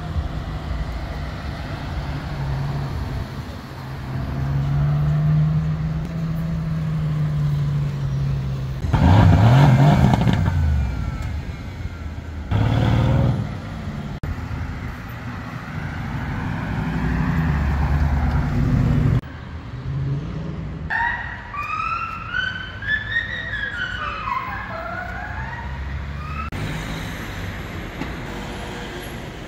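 Sports car engines accelerating on a city street, the loudest a revving pass about nine seconds in, its pitch falling as it goes. Past the middle, a police siren wails up and down for several seconds.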